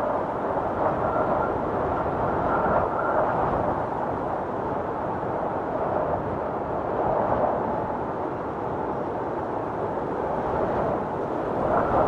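Blizzard wind howling steadily, a dense rushing with a faint high whistle in the first few seconds, swelling louder near the end.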